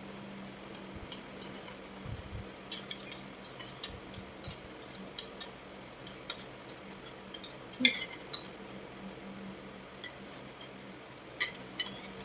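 Cutlery clinking against dishes while eating, with short, sharp clinks at irregular intervals, about two a second, over a faint steady hum.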